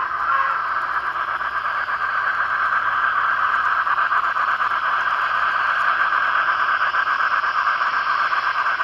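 N-scale model train running past close by: a steady, high rushing hiss with a fine rapid flutter. A steady pitched tone cuts off about half a second in.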